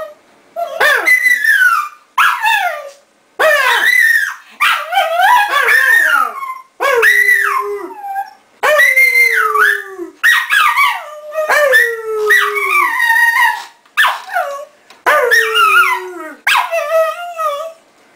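Lhasa Apso howling and whining in a long run of about a dozen drawn-out cries, each wavering and sliding down in pitch, with short breaks between them, like a dog 'talking back'.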